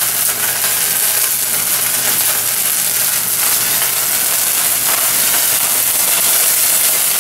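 A skillet of flaming cognac over the steak pan juices, hissing and sizzling steadily as the alcohol burns off.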